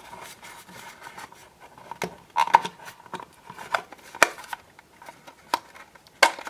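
Plastic body shell of a Hornby HST model power car being prised off its chassis by hand: several irregular sharp plastic clicks with light rubbing in between as the body clips are worked loose.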